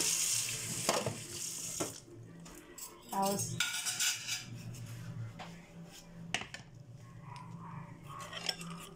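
A kitchen knife scraping the skin off a chayote, with sharp clicks and clatters of the knife and a vegetable peeler against a cutting board.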